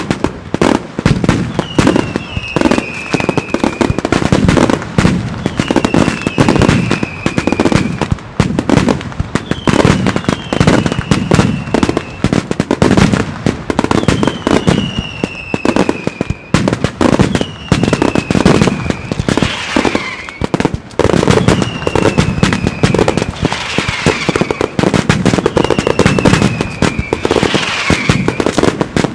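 Mascletà fireworks: firecrackers and small shells bang in rapid, unbroken succession, with a short falling whistle from whistling fireworks every few seconds.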